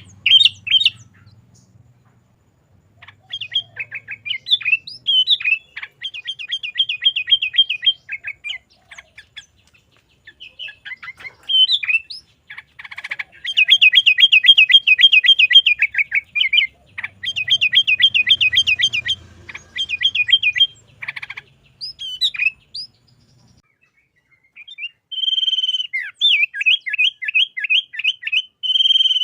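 Sooty-headed bulbul singing in runs of rapid, evenly repeated chirps, about seven notes a second, each run lasting a few seconds with short pauses between. This is the fast repeated 'garuda'-style song prized in a bird in full song.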